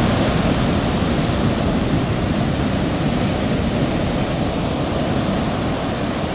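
Surf breaking on the reef: a steady rushing noise that eases slightly toward the end.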